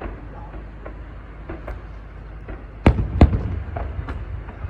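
Fireworks bursting in the sky: a few faint scattered pops at first, then a quick run of sharp, loud bangs beginning a little before three seconds in.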